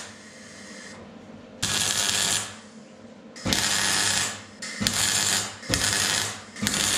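Electric arc welding of steel on a vehicle chassis frame in five short bursts, each under a second long and about a second apart, as a bracket is tacked on. A steady low hum runs between the bursts.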